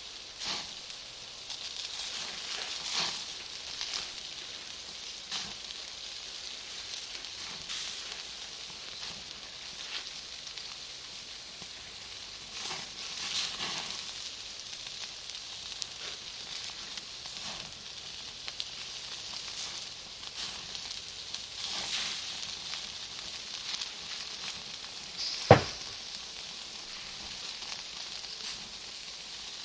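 Bonfire of firewood and Iwate cut charcoal burning with a steady hiss and scattered small crackles. About 25 seconds in, one sharp, loud pop as a piece of charcoal bursts.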